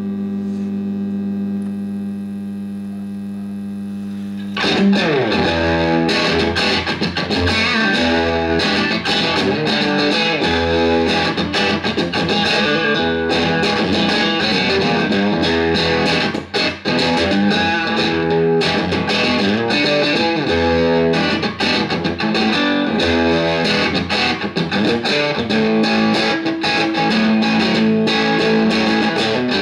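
Electric guitar played through a BYOC Octave Fuzz kit pedal, a clone of the Roger Mayer Octavia octave-up fuzz, into a Marshall JCM2000 DSL401 valve combo. A fuzzed note or chord is held for about four seconds, then continuous distorted riffing follows.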